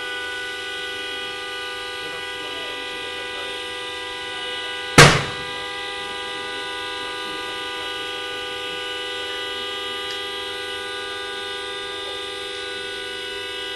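A steady drone of several held tones at fixed pitches, with one loud, sharp bang about five seconds in that dies away within half a second.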